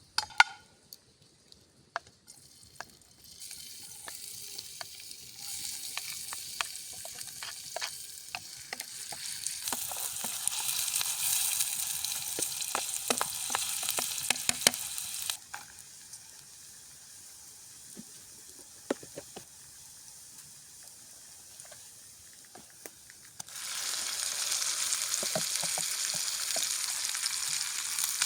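Chicken livers sizzling in a pan over a campfire, with clicks and scrapes of a utensil stirring them. The sizzle starts a few seconds in and grows louder, drops away suddenly about halfway through, and comes back loud near the end.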